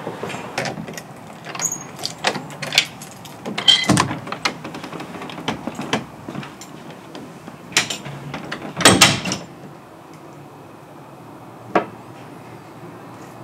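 Keys jingling and clicking in a door lock as a front door is unlocked and opened, with the loudest knocks of the latch and handle about four and nine seconds in. After that it goes quiet apart from a single click near the end.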